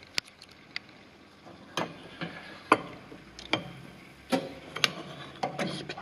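A series of about ten light clicks and knocks at irregular spacing, roughly one every half second to a second.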